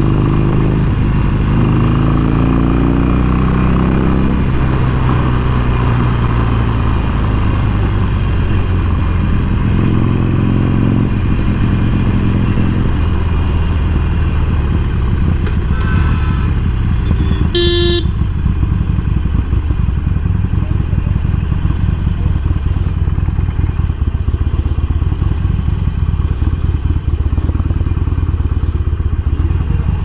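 Harley-Davidson Forty-Eight's air-cooled V-twin running under way, its pitch rising and falling with the throttle through the first dozen seconds, then a steadier low rumble. A vehicle horn honks briefly about 18 seconds in.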